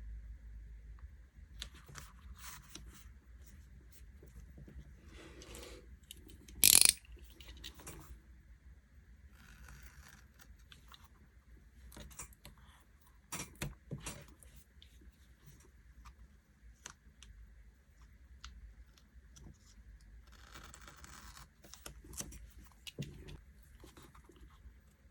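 Stickers and paper being handled at a desk for diary decorating: scattered soft rustles, peeling and small clicks, with one brief, much louder sound about seven seconds in.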